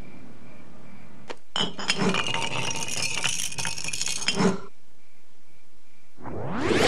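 Cartoon sound effect: a dense run of small hard clinks and rattles lasting about three seconds, starting about a second and a half in. Near the end a rising whoosh begins.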